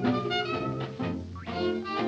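Old-time jazz music, an instrumental passage without singing.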